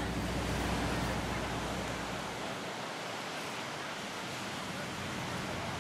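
Steady rushing noise of wind and ocean surf at the beach, with a low hum that fades out about two seconds in.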